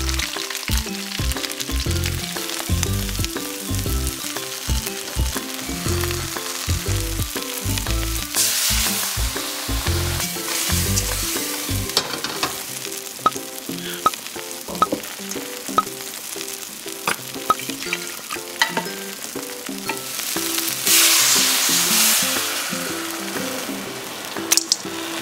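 Prawns frying in hot oil in a wok, a steady sizzle that swells louder three times, with a run of light clicks from stirring against the pan in the middle stretch.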